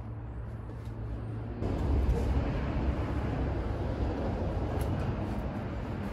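Forrest Master FM10 7-ton electric log splitter running: a steady low motor hum that grows louder and rougher about a second and a half in.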